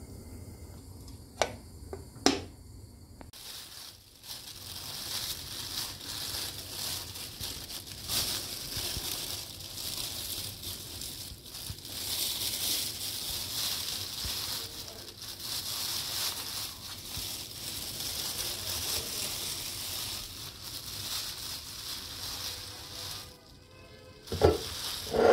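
Thin plastic bag crinkling and rustling as it is handled around a potted plant, a dense crackling that goes on for most of the stretch. Two sharp clicks come a couple of seconds in, and a short loud sound comes near the end.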